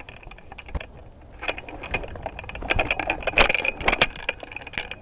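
Rustling and crackling with irregular sharp snaps and clicks: someone moving through brush with loose gear rattling, the strongest snaps about three and a half and four seconds in.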